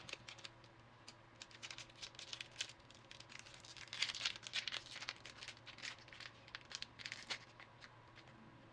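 Foil Pokémon booster pack wrapper being handled and torn open, with irregular crinkling and crackling that is busiest about halfway through.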